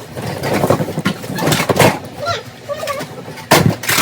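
Clutter being handled in a child's room: knocks, clatter and rustling of toys and objects, with two louder clattering knocks partway through and near the end, and brief high vocal sounds from a small child in between.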